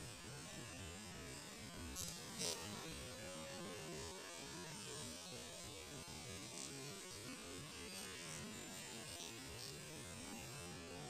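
Faint, steady outdoor background hum, with two short sharp clicks about two seconds in.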